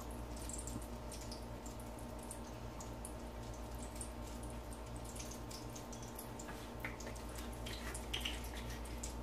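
Quiet kitchen room tone: a steady low hum with faint, scattered light ticks.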